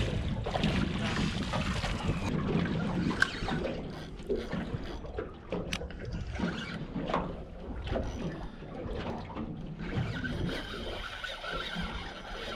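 Wind on the microphone and water slapping against a small boat's hull at sea, with scattered knocks and rustles.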